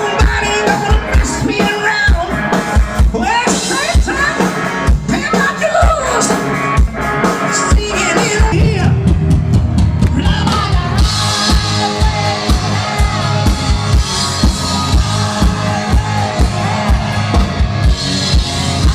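Live rock band playing loud: a steady drum-kit beat under a singer, with the bass and cymbals filling out about halfway through.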